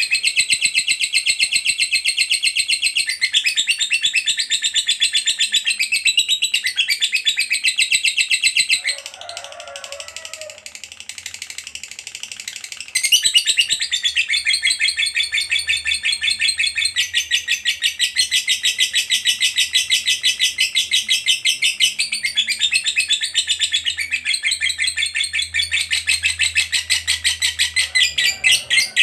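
Lovebird singing a long 'ngekek' chatter: a fast, almost unbroken stream of high, shrill chirps. The chatter drops much softer for about four seconds near the middle, then comes back at full strength. This long 'ngekek' is the song that lovebird keepers prize in a bird in full voice.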